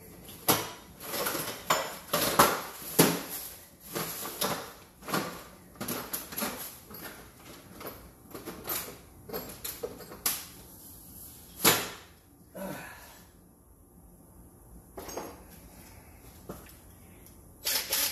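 Irregular clanks, knocks and rattles of sheet-metal water heater vent parts being handled and fitted, coming thick and fast for the first dozen seconds, then a few separate knocks later on.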